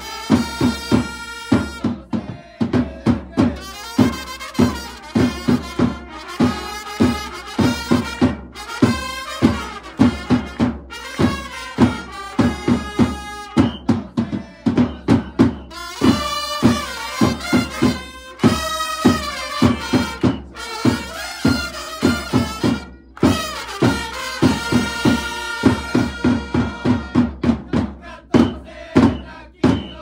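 A Japanese baseball cheering band playing a Chunichi Dragons player fight song. Several trumpets play the tune in unison over a fast, even bass-drum beat, with hands clapping along.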